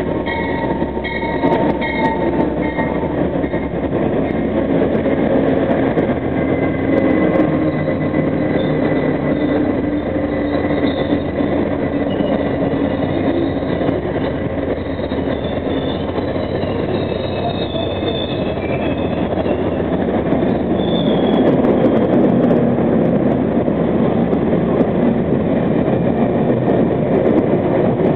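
Amtrak passenger train arriving behind two GE P42DC diesel locomotives, which pass at the start, followed by stainless-steel passenger cars rolling by on steel rails. A thin high squeal from the wheels comes in and out through the middle as the train slows into the station.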